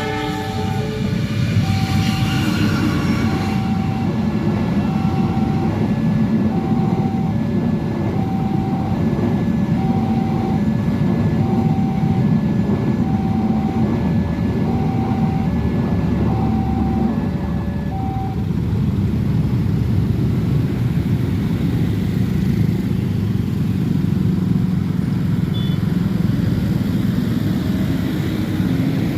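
Level crossing warning bell beeping about once a second over the steady rumble of a passing train, the Argo Semeru, running over the rails. The bell stops about two-thirds of the way through while the rumble carries on.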